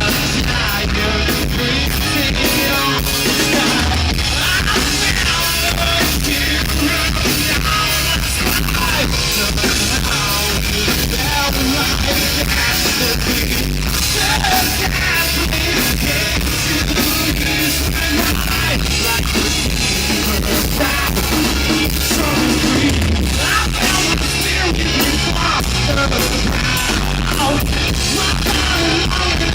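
Rock band playing a song, with a singer's voice over guitar and drums.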